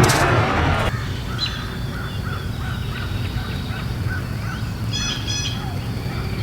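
Music cuts off about a second in, then birds calling in the open: a run of short repeated chirps, and two quick higher calls near the end.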